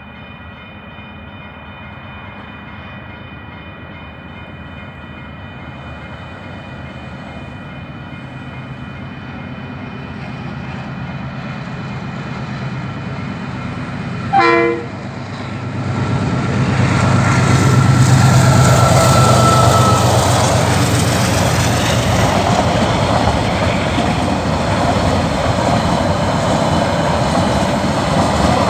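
Diesel freight train approaching and passing a level crossing: the locomotive's engine grows steadily louder, it gives one short blast of its horn about halfway through, then the locomotive and wagons go past close by with loud engine and wheel noise. High steady ringing tones, typical of the crossing's warning bell, are heard in the first half.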